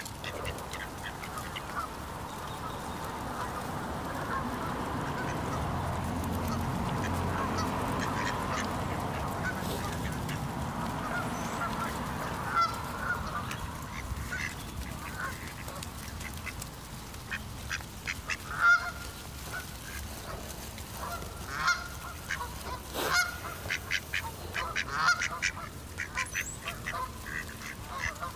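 Waterfowl, geese or ducks, calling with many short honks and squawks, thickest in the second half. A steady broad noise swells and fades under them in the first half.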